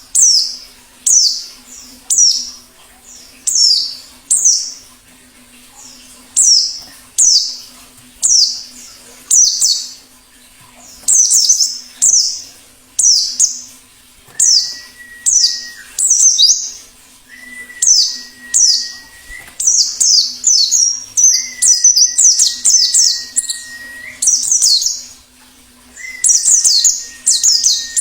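Wild white-eyes (pleci) calling: short, sharp, falling chirps repeated about every three-quarters of a second, coming faster and overlapping in the second half. From about halfway, a long, flat whistled note sounds four times, each held for about two seconds.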